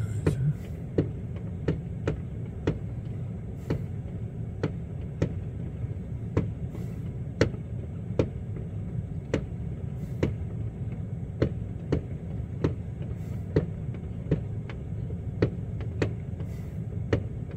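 Car engine idling, heard from inside the car, with a steady low rumble and a regular clicking about twice a second over it.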